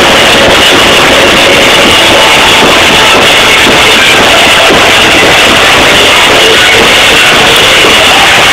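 Live band playing loud rock music with upright double bass and drum kit, recorded so loud that the sound is overloaded and distorted throughout.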